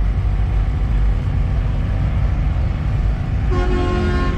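Vehicle horn blowing once for about a second, starting about three and a half seconds in, over a steady low vehicle rumble.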